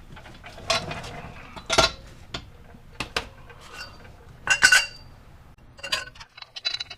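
Loose steel parts and bolts clinking and clanking as they are handled, a string of separate sharp knocks with one louder ringing strike about four and a half seconds in and a flurry of small clicks near the end.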